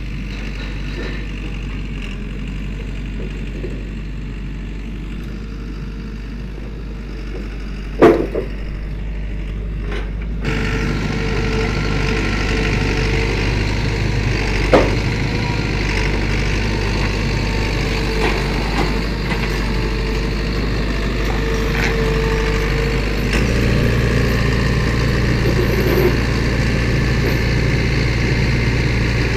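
Turbocharged diesel engine of a Gehl 7810 skid steer loader running as the machine drives, getting louder as it comes closer about ten seconds in and again near the end. A loud sharp knock about eight seconds in and a smaller one about fifteen seconds in.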